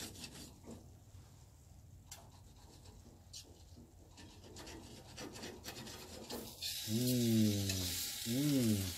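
Knife and fork scraping and clicking against a metal pizza tray as a grilled pizza is cut into slices. Near the end a steady hiss comes in, and a man's voice makes two drawn-out wordless hums.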